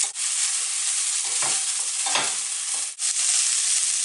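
Sliced cabbage, carrots, bell pepper and green beans sizzling steadily in hot oil in a nonstick frying pan, with a wooden spatula stirring and scraping through them in a few strokes around the middle.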